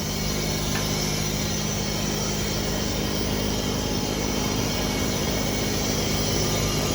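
A steady mechanical drone: a low, even hum of two steady pitches over a hiss, unchanging throughout.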